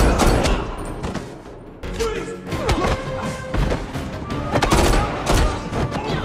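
Movie gunfight: repeated rifle gunshots over a dramatic film score, with a sharp loud hit right at the start and a dense run of shots from about two seconds in.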